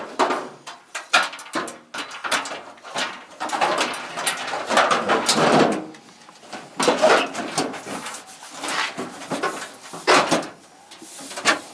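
Irregular knocks, clanks and scraping of sheet-metal car body panels being pushed and fitted into place, hood and fenders against the body.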